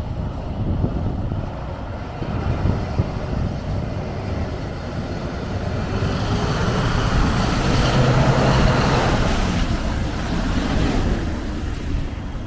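Off-road 4x4 engine running under load, revving up and growing louder to a peak a little past the middle, then easing off.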